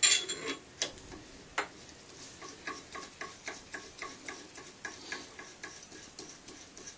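Metal parts of an AR-15 barrel nut and upper receiver clicking as the nut is slid on and turned by hand. A few sharp clicks come first, then a run of light, quick ticks about three a second, which fade near the end.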